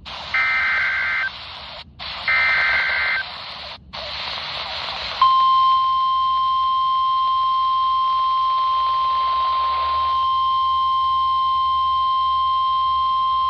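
NOAA Weather Radio alert heard through a weather radio's speaker over static hiss. Two short bursts of SAME header data tones, each about a second long, are followed about five seconds in by the steady 1050 Hz warning alarm tone. That tone signals that an emergency alert, here a severe thunderstorm warning, is about to be read.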